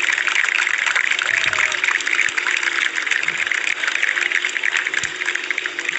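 Large crowd applauding steadily, with a motorcycle engine running low underneath.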